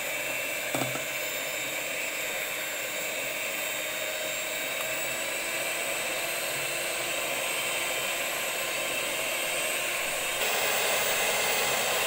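Electric hand mixer running steadily, its twin beaters whipping cream in a glass bowl to stiffen it; the whir steps up louder about ten seconds in.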